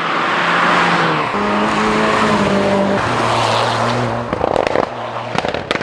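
A car's engine and exhaust at speed, the engine note holding and then shifting up and down in pitch. In the last second or so it breaks into quick stutters.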